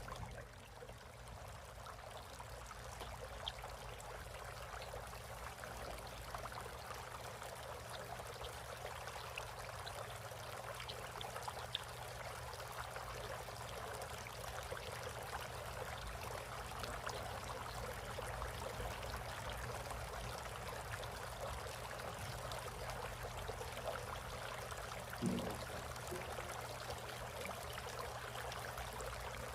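Water trickling and splashing steadily in a bird bath fountain, with a steady low hum underneath and one brief thump near the end.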